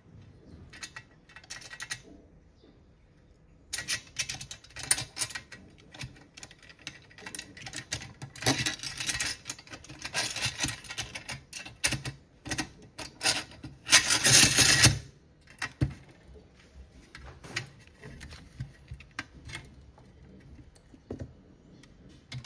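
Thin steel transformer laminations or isolation sheets being handled and worked into a microwave-oven transformer core: a run of quick metallic clicks and rattles, densest in the middle with a loud burst of rattling near the end, then thinning to scattered clicks.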